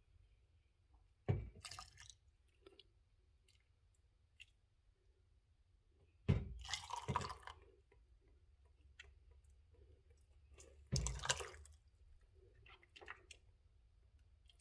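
Hot ginger, lemon, lime and turmeric brew being poured into a cup in three short splashy spurts about five seconds apart, each starting sharply, with faint clicks and drips in between.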